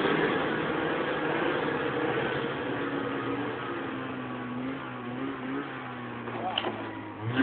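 Engine of the Lynx GLX running while driving through snow, its pitch rising and falling with the throttle. There is a sharp thump near the end.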